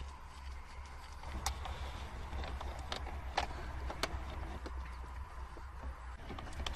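A handful of sharp plastic clicks and snaps as a Suzuki SX4 glove box handle is pried out of its housing with a small screwdriver, over a steady low hum.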